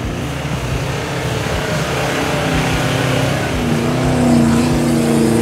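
Toyota Hilux 2.4 diesel engine working hard to climb soft sand, its revs rising about halfway through and then holding steady.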